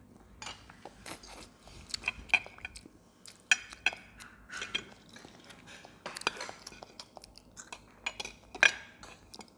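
Metal spoon clinking and scraping against a ceramic plate and bowl in short, irregular clicks, with some chewing.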